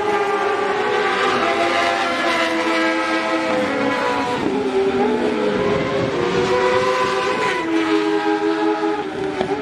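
Several racing motorcycle engines running at high revs as the bikes pass on the track, their notes overlapping. The pitch drops about five seconds in and again near eight seconds.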